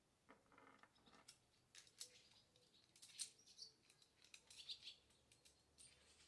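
Faint, irregular clicking and light rattling of a chainsaw chain's steel links as the chain is handled and fitted onto a Stihl guide bar.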